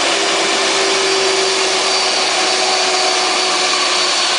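Aircraft engine blast: a loud, steady rushing of air with a faint high whine and a low hum held steady over it.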